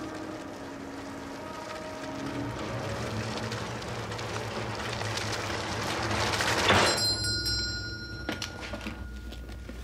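A rushing noise swells to a peak about seven seconds in, then a small bell rings with several high, clear tones that fade away, leaving one thinner tone ringing on.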